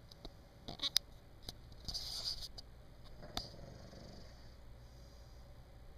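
A sleeping man snoring: one breathy snore about two seconds in, with a few sharp clicks before and after it.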